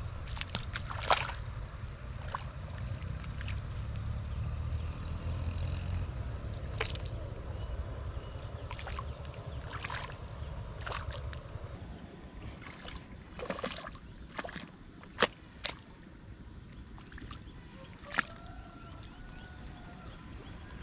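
Muddy water sloshing as a person wades through a flooded rice paddy, dragging a wooden leveling plank on a rope through the mud, with a few sharp clicks along the way. A steady thin high-pitched whine sits under it.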